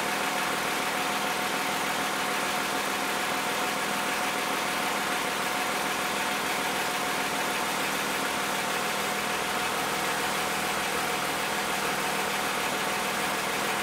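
2010 Toyota Camry's 2GR-FE 3.5-litre V6, at about 158,000 miles, idling steadily with the hood open while it warms up after a cold start. An even engine hum with a steady higher tone running through it.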